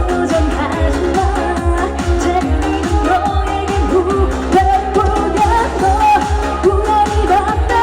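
Live trot medley through a PA system: a singer over an upbeat backing track with a quick, steady beat.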